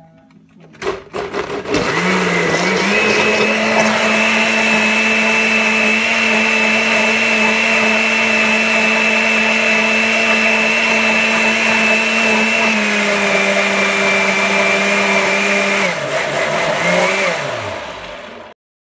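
Countertop blender blending chicken, spinach and water into a shake. The motor starts about a second in, rises a little in pitch as it comes up to speed, and runs with a steady whine. Near the end it winds down and stops.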